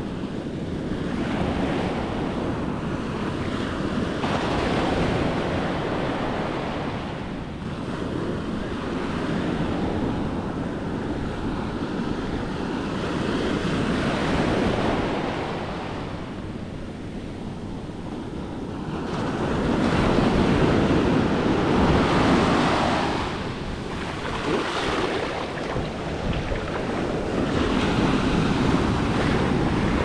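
Small ocean waves breaking and their foam washing up a sandy beach, a steady hiss that swells and ebbs every few seconds, with the loudest surge about two-thirds of the way through.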